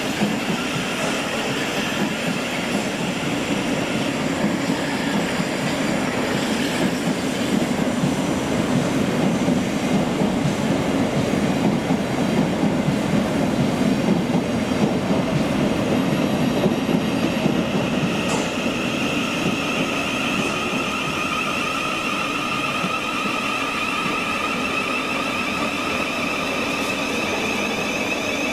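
Electric passenger train running on the track with a steady rumble. A steady high-pitched whine joins in about two-thirds of the way through.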